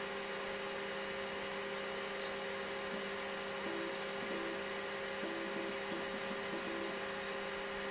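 Steady hum of a running Apple Lisa 2/5 computer and its external Apple ProFile hard disk, with a few brief faint tones in the middle as the hard disk works through a file copy.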